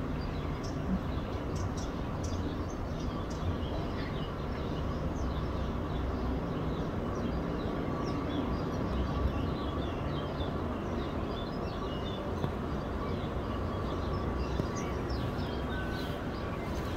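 Distant, steady rumble of a Boeing KC-135R Stratotanker's CFM56 turbofan engines as it lands and rolls out, with a faint steady whine. Small birds chirp over it.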